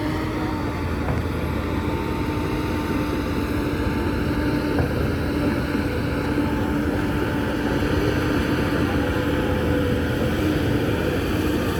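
Heavy diesel construction machinery running steadily, with a constant low rumble and a steady whine on top.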